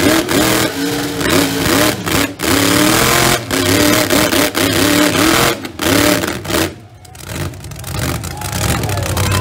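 Mega truck engines revving hard under load in a chained tug-of-war, pitch wavering up and down; the revs drop off sharply about seven seconds in, then build again.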